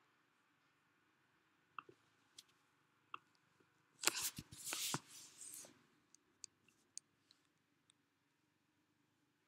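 Faint computer mouse clicks at the desk, with a louder scratchy rustling noise lasting about two seconds from about four seconds in.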